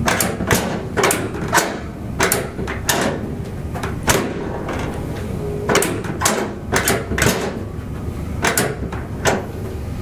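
A series of over a dozen sharp knocks or slaps, irregularly spaced, some about half a second apart, with a pause of a couple of seconds midway, over a steady low background noise.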